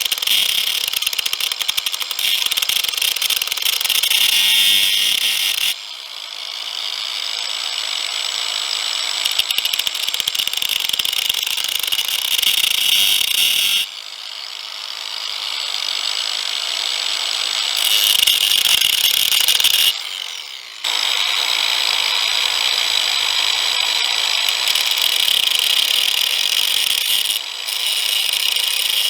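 A power grinder working a steel blade, with a continuous high grinding hiss. It breaks off abruptly several times as the work comes off the abrasive, then builds back up.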